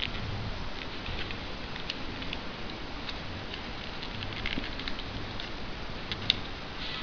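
Origami paper crinkling and crackling between the fingers as it is folded and pinched: scattered small crisp clicks over a steady hiss, the sharpest one about six seconds in.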